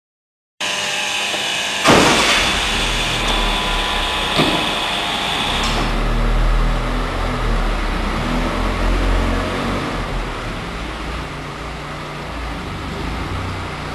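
A 2007 Audi S3's turbocharged 2.0-litre four-cylinder engine starts with a sharp bang about two seconds in, then idles with a steady low hum, echoing in an underground garage.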